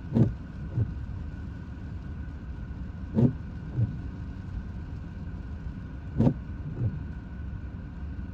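Steady road rumble inside a moving car, with the tyres thumping over road joints: a pair of knocks, front wheels then rear, three times about three seconds apart.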